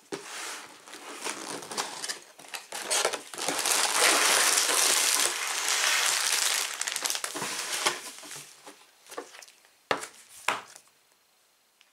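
Cardboard box being opened and plastic bags of LEGO pieces pulled out: crinkling plastic and scraping cardboard, loudest in the middle, with two sharp knocks near the end.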